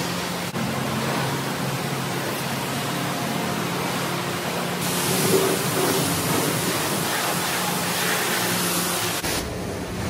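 Car wash high-pressure wand spraying water in a steady hiss over a low steady hum. The hiss grows brighter about five seconds in as the spray plays over the car, and turns duller and lower near the end.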